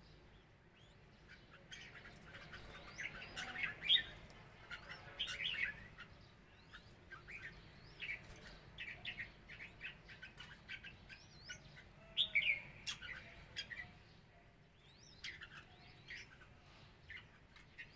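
Red-whiskered bulbuls calling: short chirps and quick warbled, up-and-down notes in scattered bursts, loudest about four seconds in and again around twelve seconds in.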